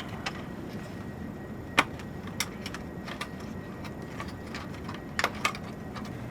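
Scattered small clicks and taps of a data cable being unrouted and handled inside a server chassis, with sharper clicks about two seconds in and a few more just after five seconds, over a steady low hum.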